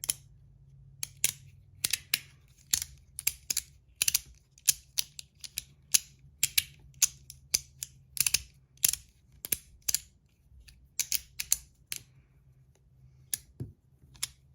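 Flat Verk fidget slider being worked by hand, its plates sliding and clicking in irregular sharp clicks, about two or three a second, with a short pause near the end.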